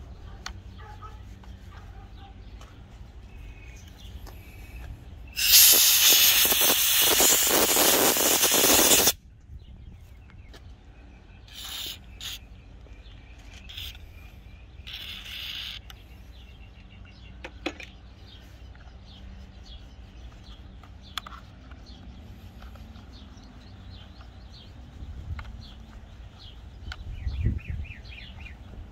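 Aerosol can of DeoxIT D5 contact cleaner sprayed through its straw into the knob of a Thermo King APU controller, to clear oxidation from the knob's contacts. One long hiss of about four seconds comes roughly five seconds in, then several short squirts a few seconds later.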